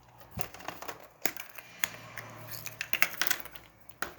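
Hands handling small plastic toys and wrapped candies: irregular clicks, taps and light crinkling.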